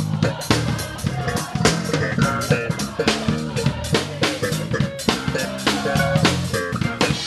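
Live gospel band playing: a drum kit, heard close up, keeps a busy beat of several drum and cymbal hits a second over a bass guitar line.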